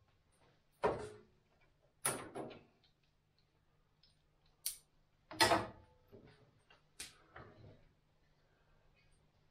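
A loose new steel sill panel knocking and clanking against the VW T2's body and sill as it is handled and lifted off. There are about five sharp metallic knocks with short tails, the loudest about five and a half seconds in.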